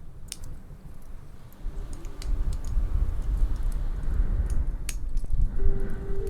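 Wood fire in a fireplace crackling, with scattered sharp pops and snaps over a low rumble that swells about one and a half seconds in. Near the end a soft steady tone comes in.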